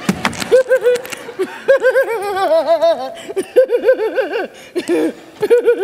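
A woman laughing in quick repeated 'ha-ha' runs. A door bangs shut right at the start.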